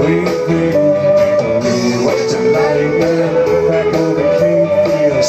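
Live rock band playing a guitar-led passage over a steady drum beat.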